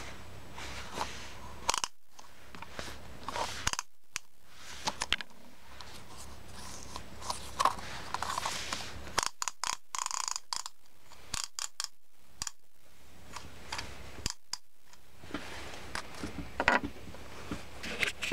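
Small plastic novelty tape measure being handled: irregular clicks, taps and short scrapes of the plastic case and its parts.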